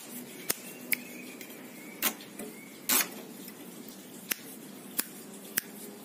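A caged plain prinia moving about its bamboo cage: a string of sharp, irregular clicks and snaps, with one louder, longer crackle about three seconds in.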